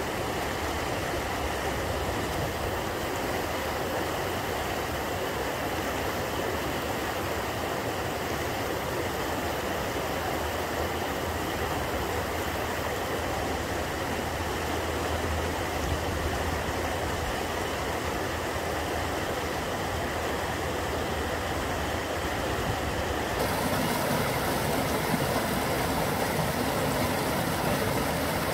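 River rapids: a steady rush of white water. About 23 seconds in the sound changes abruptly, becoming brighter and a little louder.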